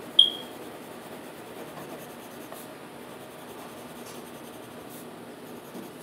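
Green coloured pencil scratching and rubbing on paper as it shades in a drawing. One short, sharp high ping just after the start is the loudest sound.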